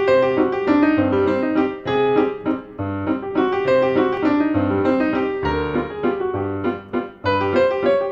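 Background music on piano: a melody of many short notes over a regular bass line.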